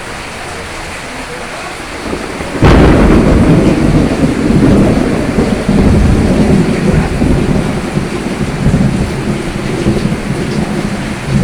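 Steady rain, then about two and a half seconds in a sudden sharp thunderclap that turns into a long low rumble and slowly dies away under the rain.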